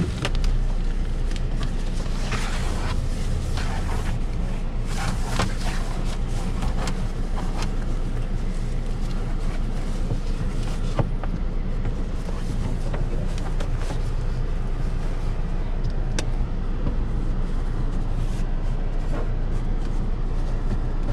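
Car engine idling steadily with a low hum, heard inside the car's cabin. A few brief bursts of rustling and handling noise come in the first several seconds.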